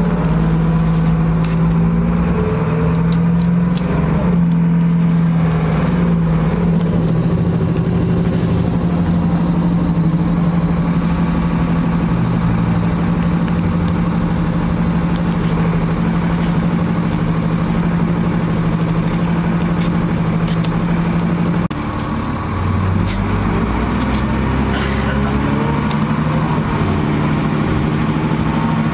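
A 2000 NovaBus LFS city bus's diesel engine and drivetrain running under way, heard from inside the cabin as a strong steady hum with engine notes rising and falling. About three-quarters through the hum drops off to a lower drone for a few seconds, then builds again, with small clicks and rattles throughout.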